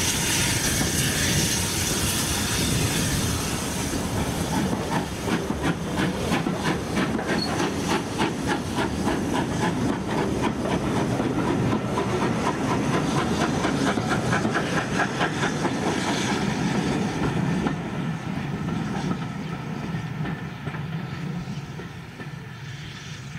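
Railway coaches of a departing steam train rolling past, their wheels clicking in a quick, even rhythm over the rail joints over a steady hiss. The sound fades away over the last few seconds as the train draws off.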